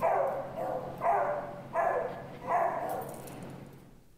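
Shelter dog barking repeatedly in its kennel, four barks in under three seconds, fading toward the end. The barking is one of the signs of the dog's anxiety and high arousal in the kennel.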